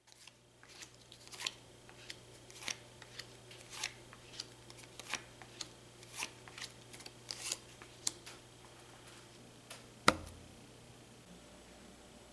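Playing cards being handled and laid onto a wooden table in a game of solitaire: an irregular run of crisp snaps and light slaps, a few a second, which thins out after about eight seconds. About ten seconds in comes one loud, sharp knock on the table that rings briefly.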